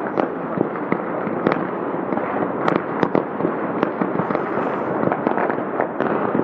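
Many New Year fireworks and firecrackers going off at once across a city: a dense, unbroken crackling din with sharp bangs several times a second.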